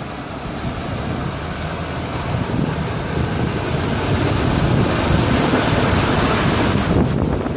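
Land Rover Discovery driving through a shallow river: water rushing and splashing around its wheels over the engine noise, growing louder as it comes close, with the splash loudest about five to seven seconds in.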